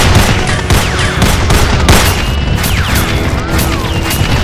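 Dubbed gunfire sound effects: rapid shots about three a second, mixed with short falling whistles, over background music.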